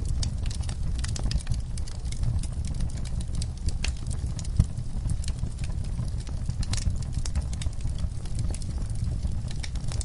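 Wood fire crackling in a fireplace: irregular sharp snaps and pops over a low steady rumble of the burning logs, with one louder pop about four and a half seconds in.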